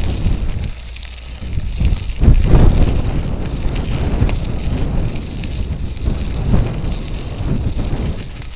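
Wind buffeting the microphone on a moving bicycle, with a steady crackle from the tyres rolling over the trail. The buffeting eases briefly about a second in, then comes back louder just after two seconds.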